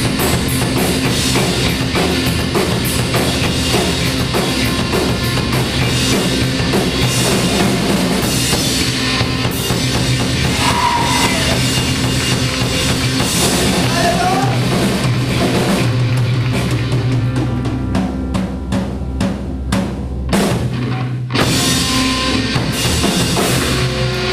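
Rock music played by a band, with a loud drum kit and bass. Near the end the band breaks into a string of separate sharp hits with short gaps between them.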